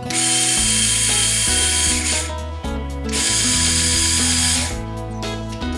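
Background music with a stepping bass line, over which the Mould King 13107 crane model's small electric motor and plastic gears whir in two runs, the first about two seconds and the second about a second and a half, each starting and stopping abruptly.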